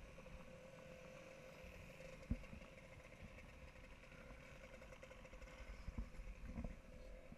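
Daimler Ferret armoured car's Rolls-Royce six-cylinder petrol engine running slowly under the camera, faint, with a low rumble and a steady whine. A few dull knocks come about two seconds in and again near the end.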